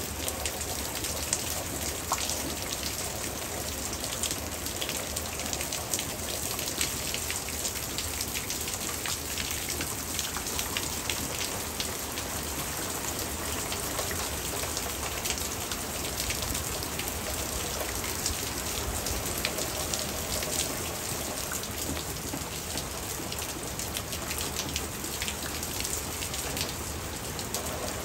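Hard rain falling steadily: a dense hiss full of the sharp taps of single drops striking a surface.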